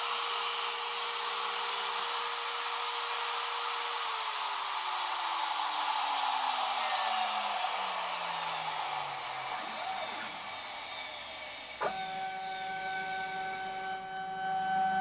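Porter-Cable router used as the spindle of a homemade CNC router, running with a steady whine, then switched off about four seconds in and spinning down, its pitch falling over about six seconds. About twelve seconds in, the machine's stepper motors start driving the gantry, a steady hum of several fixed tones.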